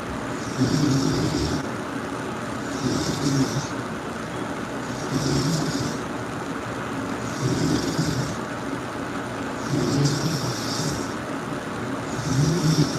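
A person snoring loudly in a steady rhythm, about one snore every two seconds, six in all, over a constant background hiss.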